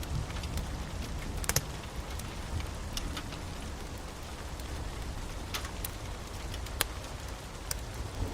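Storm ambience: steady rain with a low rumble underneath, and scattered sharp crackles throughout.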